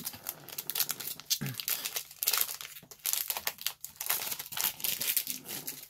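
Foil wrapper of a Pokémon Lost Thunder booster pack crinkling irregularly as it is handled and opened.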